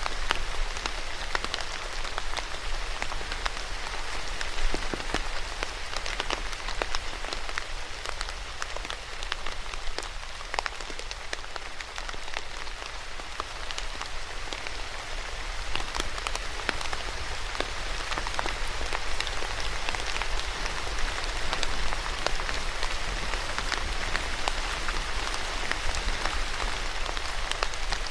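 Steady rain falling on a hard surface: a dense, even patter with many distinct drop ticks over a low steady rumble.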